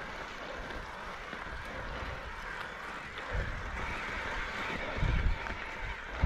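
Wind rushing over the camera microphone of a moving mountain bike: a steady hiss with low buffeting gusts about halfway through and twice more near the end.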